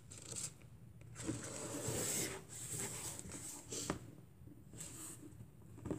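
Paper pages of a large hardcover book rustling as they are turned and handled, in several soft bursts, with a short sharp knock about four seconds in.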